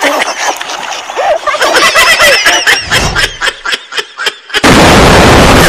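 A rapid, uneven string of sharp pops and bangs with a few short squeaky sounds. About four and a half seconds in, a sudden loud rush of noise starts and holds, the edited sound effect for a YouTube-logo animation.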